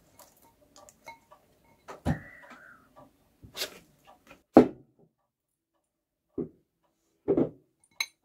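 Scattered knocks and clunks from a plant pot and water container being handled during watering, the loudest about four and a half seconds in.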